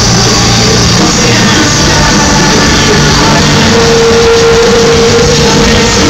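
Rock band playing live in an arena, loud, with electronic synth textures over the drums and guitars, heard from among the crowd. A long held note comes in about two-thirds of the way through.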